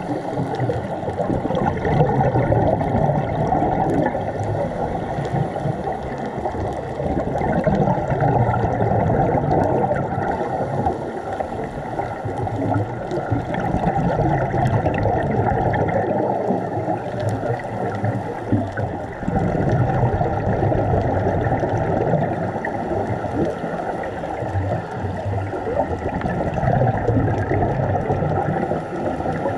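Muffled underwater noise heard through a camera's waterproof housing: a scuba diver's exhaled regulator bubbles rumble and swell every few seconds, with faint scattered clicks from the reef.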